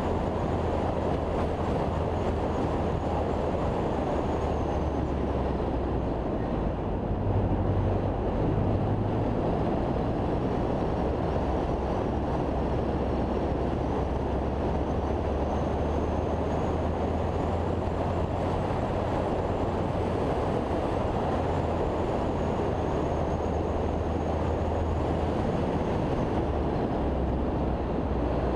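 Steady rumble of a car driving along a winding road, picked up by a camera on its bonnet: engine drone mixed with tyre and wind noise, a little louder about seven seconds in.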